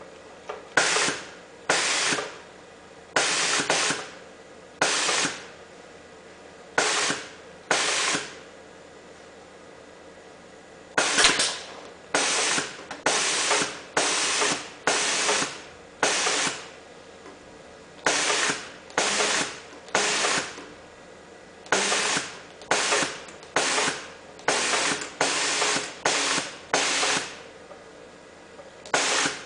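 HAMS MHA-SSM100-J side-seamer industrial sewing machine working in short runs: about twenty sharp, hiss-like bursts, each under a second and fading quickly, at uneven gaps.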